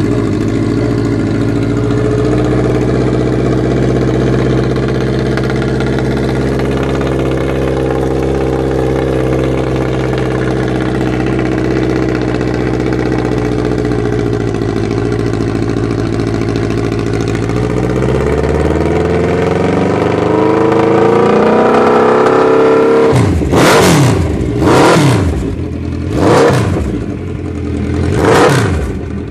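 Suzuki GSX1400's inline-four engine running through MTC slash-cut shotgun silencers: it idles steadily, the revs climb slowly from about two-thirds of the way in, then it is blipped sharply four times near the end, each rev rising and dropping quickly.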